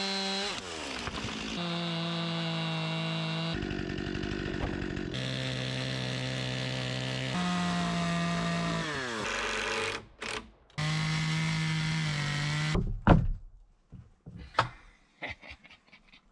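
Gas two-stroke chainsaw running at high speed and cutting wood, its pitch stepping from one cut to the next and falling as the throttle is let off. In the last few seconds it gives way to a string of sharp knocks and thunks.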